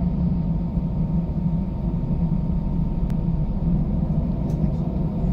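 Airbus A319 cabin noise while taxiing: a steady low rumble of the jet engines at taxi power, heard from inside the cabin, with a faint steady high tone and a single light click about three seconds in.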